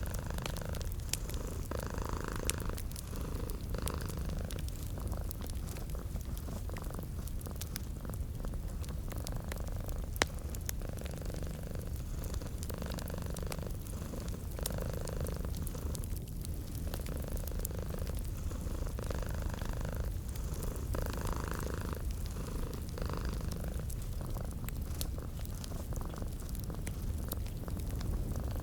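A cat purring steadily in a slow in-and-out rhythm, over the light crackle and pops of a wood fire in a fireplace, one pop standing out about ten seconds in.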